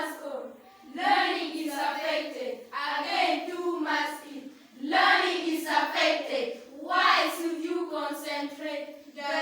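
A child's high voice reciting a poem aloud in a chant-like delivery, in phrases about a second or two long with short breaks between them.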